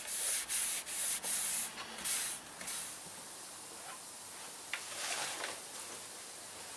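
Microfibre cloth wiped in quick, repeated strokes over a primed plastic motorcycle panel, cleaning it before paint, for about the first three seconds. After that only a faint steady hiss, with a brief rustle about five seconds in.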